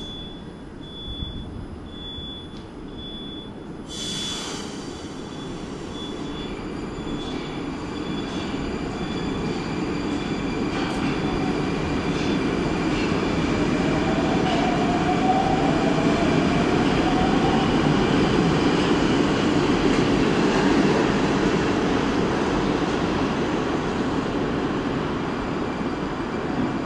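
81-760/761 'Oka' metro train pulling out of the station and accelerating past. A short hiss comes about four seconds in. Then the noise of wheels and running gear builds steadily louder, with a faint whine shifting in pitch partway through, and eases slightly near the end.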